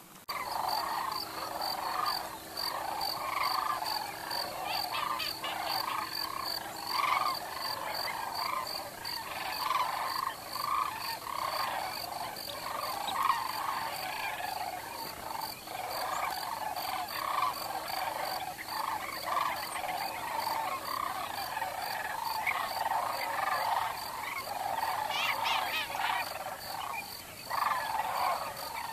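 Dense, continuous chorus of many overlapping animal calls from a flooded winter marsh, with a faint, steady, high-pitched pulsing note above it.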